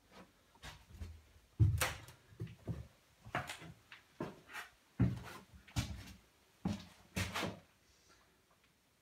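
Footsteps on wooden floorboards: a string of irregular thuds and knocks, the loudest about two seconds in, stopping shortly before the end.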